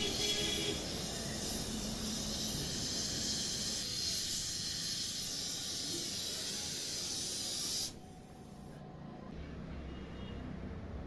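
Gas welding torch flame hissing steadily while brazing brass, then cutting off abruptly about eight seconds in, leaving a quieter low rumble.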